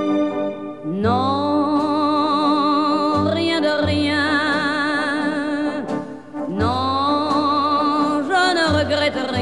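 Background music: a melody of long held notes with strong vibrato, each phrase sliding up into its first note, over a low bass line.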